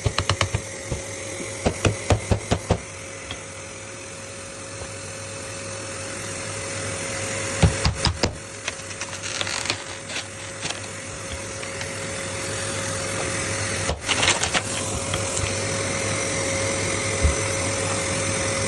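A machine running steadily with a constant whine, slowly getting louder, with a quick run of sharp knocks or taps in the first few seconds and a few more about eight and fourteen seconds in.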